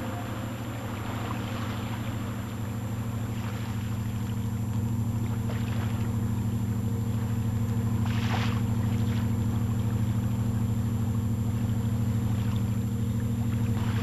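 A fishing boat's engine running steadily with a low drone, growing slightly louder; a brief hiss about eight seconds in.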